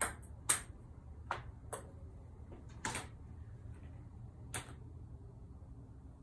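Ping pong ball clicking off the hard parts of a trick-shot contraption: about six sharp, irregularly spaced clicks, the loudest about half a second in, over a low steady hum.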